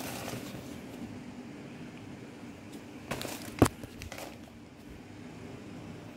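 Clear plastic shoe bag and cardboard box being handled: a few crinkles of plastic and one sharp tap a little past halfway, over a steady low hum.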